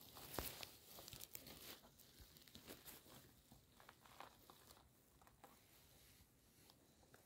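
Faint rustling and crackling of grass and dry leaf litter as a hand reaches in, grips a porcino mushroom and works it loose from the ground. The crackles and small snaps are busiest in the first three seconds and then thin out.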